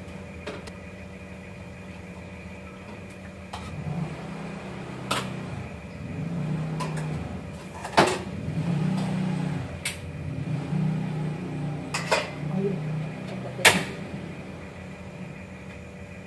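Kitchen utensils clinking and knocking against a cooking pot and plate as boiled water spinach is lifted out and served, five sharp knocks between about 5 and 14 seconds in with handling noise between, over a steady hum.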